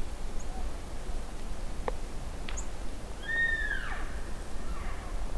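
Elk mewing: one clear call about three seconds in that slides down in pitch, then a fainter one just after, over steady wind noise. A sharp click about two seconds in.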